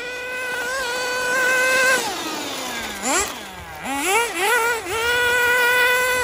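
Nitro engine of a Kyosho MP9 TKI4 RC buggy held at high revs for about two seconds, then falling away as the throttle is released. A few quick throttle blips follow, and it climbs back to full revs for the last second or so. The engine is new and still tuned a bit rich.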